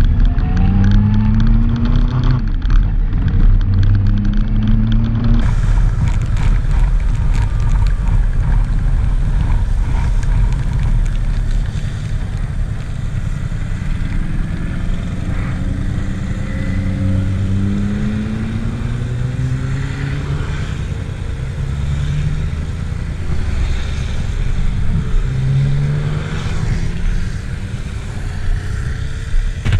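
Motorcycle engines accelerating through the gears on a wet road, the pitch rising in repeated runs over heavy wind noise on the microphone. From about five seconds in this is the Honda Deauville 700's V-twin with a Delkevic full exhaust, heard from its own seat.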